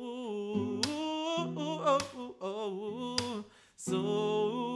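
A man sings a drawn-out, wordless line over strummed acoustic guitar chords in a slow worship song. The sound drops away for a moment about three and a half seconds in, then a new strum and the voice come back in.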